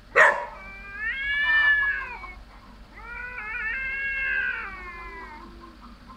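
Cats yowling in an aggressive standoff: a sudden sharp burst just after the start, then two long, drawn-out wavering yowls, the second beginning about three seconds in.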